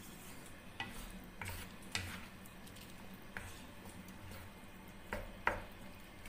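A wooden spatula stirring chicken and vegetables in sauce in a wok, with irregular scrapes and taps against the pan over a faint sizzle.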